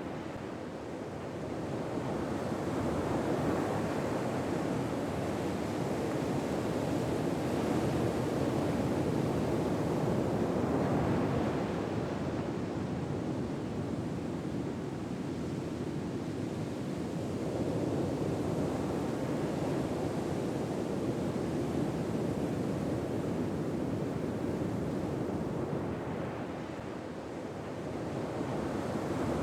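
Ocean surf: a steady wash of waves that slowly swells and eases over several seconds at a time.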